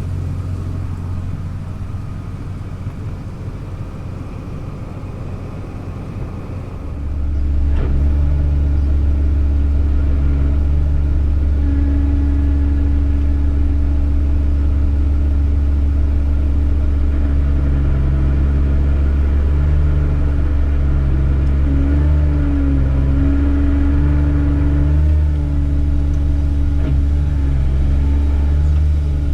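Farm harvest machinery's diesel engine running steadily under load in the corn field, a low drone that steps up in loudness about seven seconds in and then holds.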